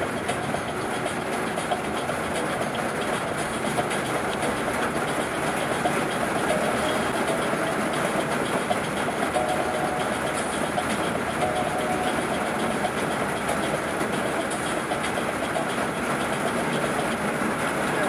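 Steady rain falling on wet asphalt, a dense, even hiss.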